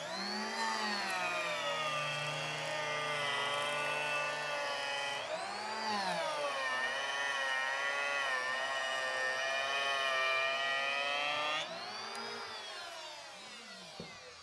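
Makita N1900B electric hand planer with a helical carbide cutterhead running and planing a hickory board, a high whine that sags in pitch under the load of the hard wood. Its pitch climbs and dips again about six seconds in. After about twelve seconds it rises briefly and then fades as the motor winds down.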